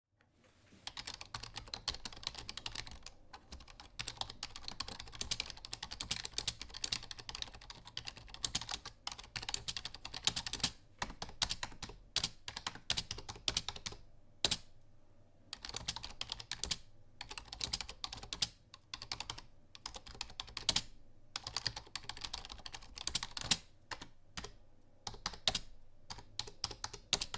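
Rapid typing on a computer keyboard: quick runs of key clicks broken by short pauses.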